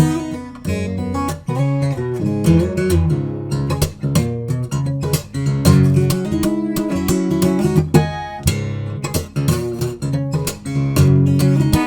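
Lava ME 3 carbon-fibre acoustic guitar played with strummed and picked chords, one quick stroke after another.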